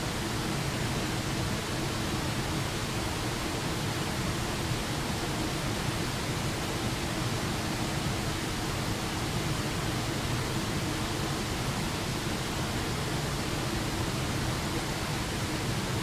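Small waterfall pouring over a rock ledge into a shallow, rocky creek: a steady, unbroken rush of falling water.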